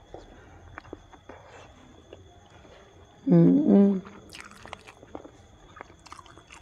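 A person chewing a bite of peeled roasted chicken egg, with soft wet mouth clicks. A short two-part hummed "mmm" comes about three seconds in, then a quick breath, and more chewing clicks near the end. A faint steady high-pitched electronic whine runs underneath.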